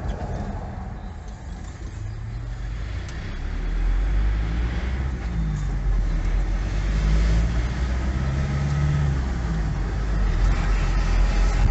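Diesel vehicle driving, its engine and road rumble heard from inside the cab. The engine note rises and falls a few times as it pulls away and changes speed, getting louder about four seconds in.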